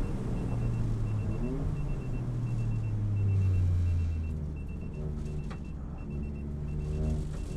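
Toyota GR Yaris's turbocharged 1.6-litre three-cylinder engine, its note falling as the car slows over the first few seconds, running low for a while, then rising again as it accelerates near the end. A faint high beep repeats steadily throughout.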